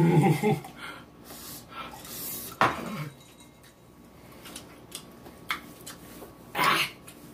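Table sounds of eating and drinking: short clinks and knocks of a drinking glass and dishes, one a few seconds in and another near the end, over a quiet background.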